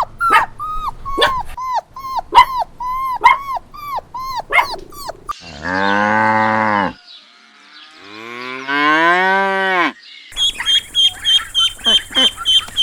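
Two long cow moos in the middle, the second rising and then falling in pitch. Before them comes a quick series of short, sharp animal calls. After them, a fast run of high calls, about five a second.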